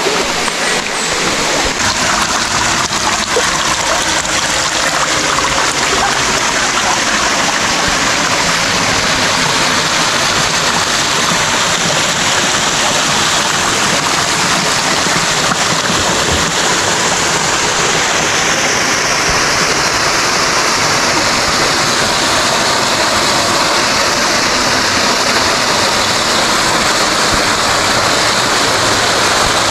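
A small waterfall spilling over limestone rock into a spring pool: a steady rush of splashing water.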